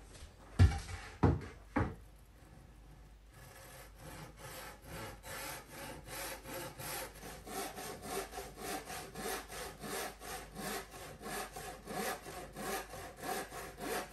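A few knocks in the first two seconds, then a hand saw cutting through a plywood board in a steady run of back-and-forth strokes.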